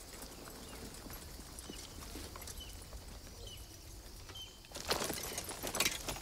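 Quiet outdoor ambience with short high bird chirps about once a second; about five seconds in, louder irregular crunching steps on stony ground begin.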